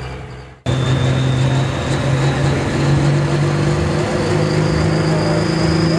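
A turbocharged diesel pickup engine running steadily at raised revs while hooked to the pulling sled, with a high turbo whistle that slowly climbs in pitch. It starts abruptly about half a second in, replacing the fading end of the previous truck's run.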